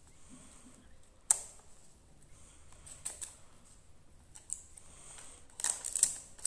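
Small cardboard carton being handled and opened by hand: scattered light clicks and paper rustling, one sharp snap about a second in, and louder rustling and clicking near the end.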